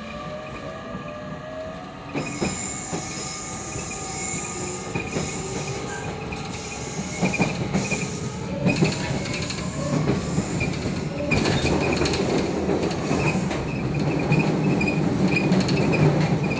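A JR Kyushu 813 series electric train car running, heard from the car end. A whine rises in pitch as the train picks up speed, and a repeated high-pitched 'kyu-kyu' squeak keeps coming from the car end, with occasional clatters. The squeak is an abnormal noise, described as a terrible one that eases on straight track.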